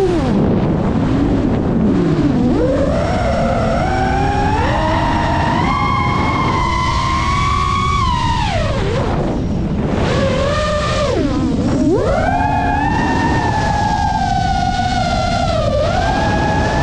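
FPV racing quadcopter's electric motors and propellers whining, the pitch climbing over the first several seconds, then dropping sharply twice near the middle as the throttle is cut and reapplied before holding steady. A low rush of air runs underneath.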